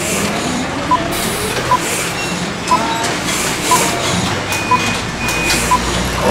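Vehicle engine running under a short single-pitch beep repeating about once a second, with a brief higher steady tone past the middle.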